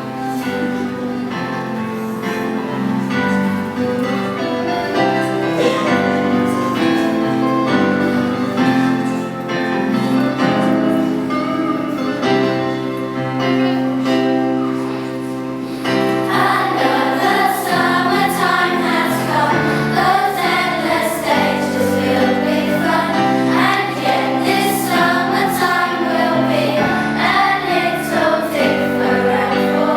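A song's instrumental accompaniment with steady held chords, then a children's choir comes in singing over it about halfway through.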